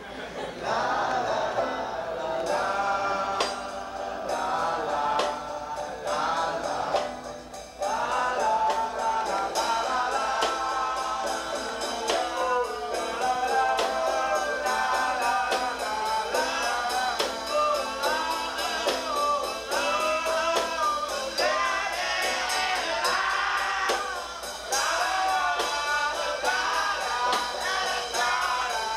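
Acoustic band playing a song: singing over acoustic guitar, banjo and a snare drum keeping a steady beat, getting louder about eight seconds in.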